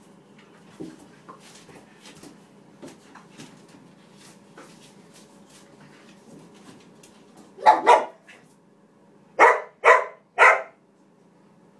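A dog scrabbling faintly with its claws on a tile floor, then barking five times, a quick pair followed by three barks about half a second apart, at a treat it cannot reach under a chest of drawers.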